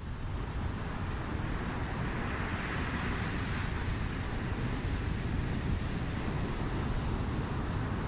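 Surf breaking and washing over rocky boulders, a steady hiss of foaming water, with one wash swelling and fading about three seconds in. Wind buffets the microphone as a low rumble underneath.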